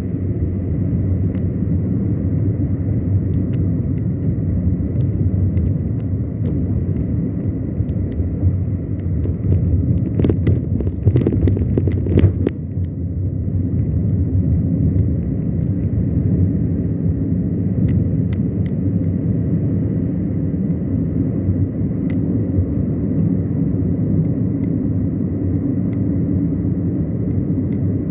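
Steady low road and engine rumble of a car driving, heard from inside the cabin, with a faint steady high whine. A cluster of sharp knocks and rattles comes about ten to twelve seconds in, as over a rough patch of road.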